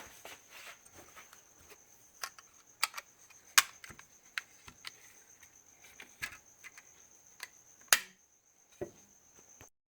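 Scattered sharp clicks and taps, about eight at irregular intervals, over a faint steady high-pitched whine; everything cuts off just before the end.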